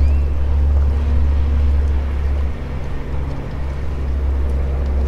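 Steady low rumble with a faint motor hum aboard a small fishing boat; the hum shifts in pitch about halfway through.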